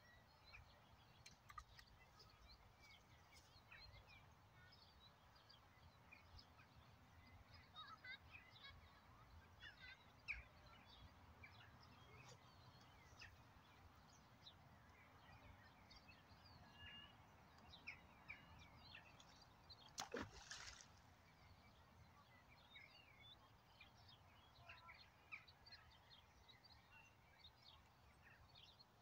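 Near-silent outdoor ambience with faint, scattered bird chirps; a single brief sharp knock or click about twenty seconds in.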